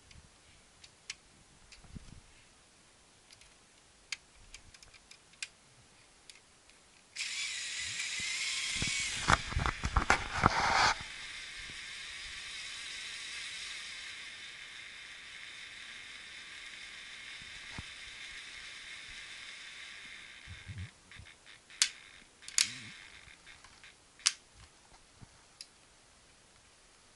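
Small electric motor of a Lego Technic 42025 cargo plane starting suddenly and running steadily with a whine, driving the propellers through the model's plastic gears. It comes with loud rattling knocks for a couple of seconds soon after it starts, and stops after about fourteen seconds, followed by a few sharp clicks.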